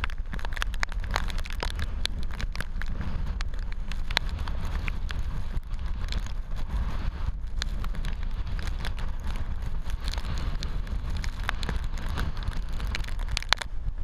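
Typhoon eyewall wind blasting across the microphone in a constant deep rumble, with rain and spray spattering the camera in a dense crackle of sharp ticks.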